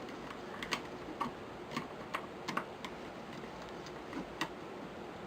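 Light, irregular metallic clicks and taps as small parts of a Savage Model 64 semi-automatic rifle are handled and fitted back together, about nine clicks spread unevenly, with a cluster in the middle.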